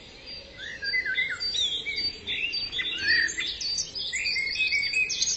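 Songbirds chirping and singing, many short rising and falling calls overlapping over a faint steady hiss, growing louder about a second in.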